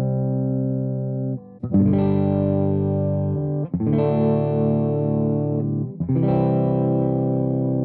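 Epiphone Les Paul electric guitar, upgraded with StewMac Parsons Street humbucker pickups and new hardware, playing chords that are struck and left to ring. A new chord comes in three times, about two seconds apart.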